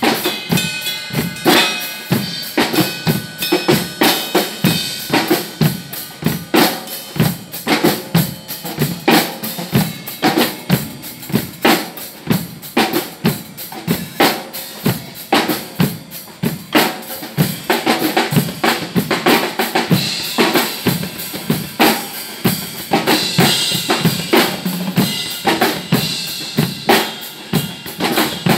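Several acoustic drum kits playing a groove together: kick drum, snare and cymbals in a steady, dense beat.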